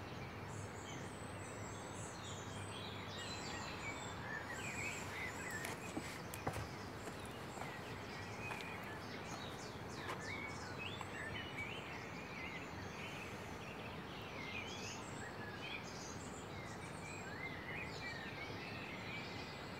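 Outdoor ambience of several birds chirping and singing over a faint steady hiss, with a small knock about six and a half seconds in.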